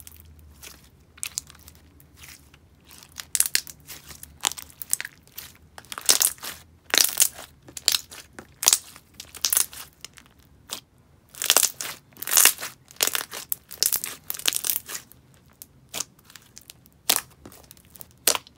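Thick clear slime loaded with foam beads and fishbowl beads being stretched, folded and pressed by hand, giving irregular sharp clicks and crunchy pops in quick clusters.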